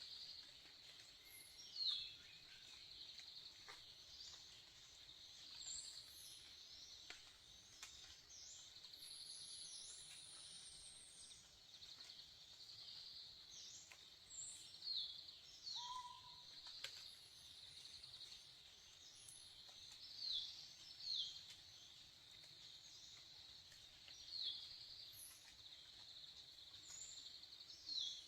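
Insects buzzing steadily at a high pitch, with brief, sharp downward-sweeping bird chirps every few seconds and a few thin, high whistles.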